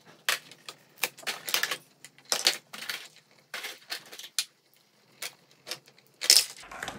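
Irregular plastic clicks and crinkles as action-figure accessories are pulled from clear plastic blister trays and handled, with a louder crackle near the end. A steady hiss comes in just before the end.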